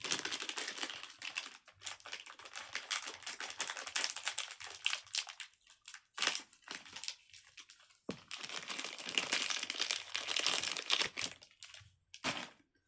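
Squishy packaging crinkling and crumpling as it is handled and unwrapped, in several stretches with short pauses between them.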